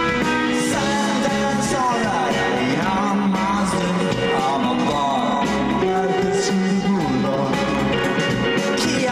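A rock band playing live: electric guitars, bass and drums, with a melody line that slides and bends in pitch and a few cymbal crashes.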